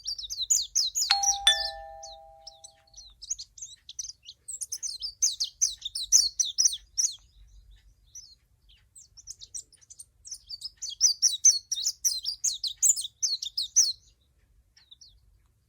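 Small birds twittering in rapid high chirps that pause briefly partway through, with a two-note falling ding-dong chime about a second in.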